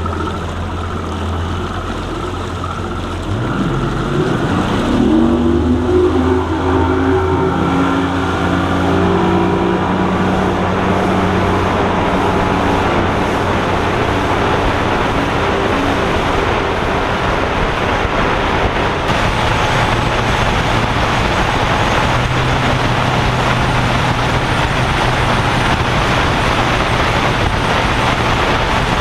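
An engine speeding up over the first several seconds, then running steadily at speed with loud rushing wind noise.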